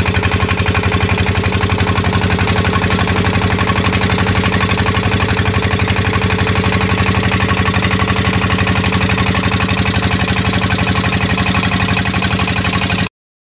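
A small fishing boat's engine running steadily, with a rapid, even pulse, then cutting off abruptly near the end.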